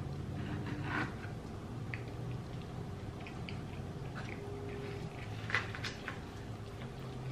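Wooden chopsticks stirring and lifting instant black-bean-sauce noodles in a bowl: scattered soft clicks and scrapes, with a small cluster about two-thirds of the way through, over a steady low hum.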